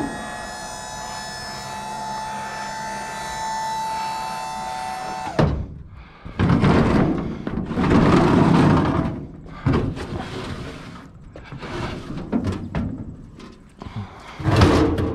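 A steady held chord of tones for about five seconds, then a run of irregular thuds and knocks as a discarded cabinet or shelf unit is handled.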